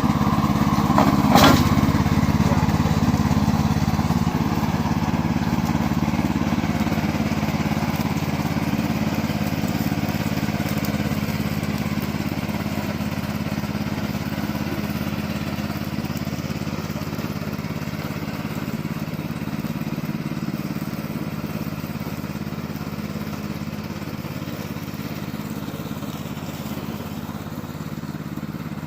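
Gasoline engine of a remote-control lawn mower running steadily, with one sharp click about a second and a half in; the engine sound slowly grows fainter.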